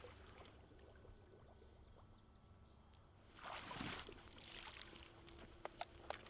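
Mostly near silence, then about three and a half seconds in, a faint sloshing and dripping of water as the hot AK rifle is pulled out of the pond it was dunked in to cool off. A few faint clicks follow near the end.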